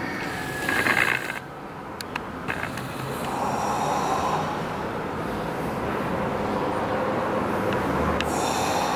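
Heavy, forceful breathing of a man straining through a set of dumbbell flyes, loudest about a second in, over steady background noise.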